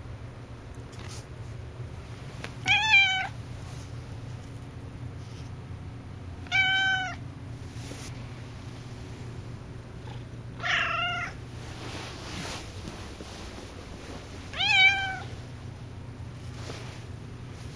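A house cat meowing loudly four times, about four seconds apart, each meow about half a second long.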